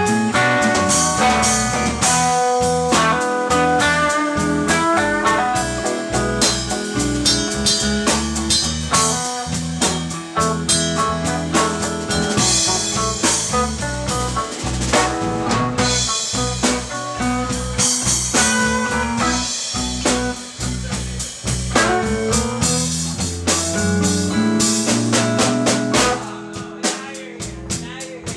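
Live electric blues band playing: guitar lines over electric bass and a drum kit. The band drops quieter about two seconds before the end.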